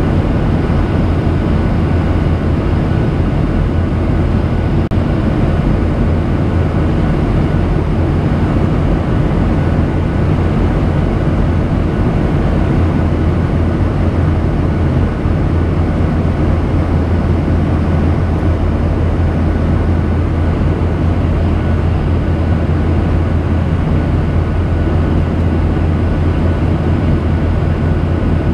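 Steady cabin noise of a Boeing 737-800 in flight, heard inside the cabin: the low drone of its CFM56-7B turbofan engines mixed with the rush of air past the fuselage, unchanging throughout, with a faint thin whine above it.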